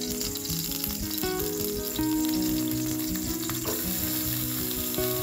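Cooking oil sizzling in a stainless steel pot, with sliced shallots tipped into it near the end. Background music plays over it.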